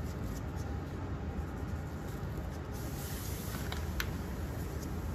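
Steady low hum of kitchen background noise, with a few faint clicks of handling about three to four seconds in.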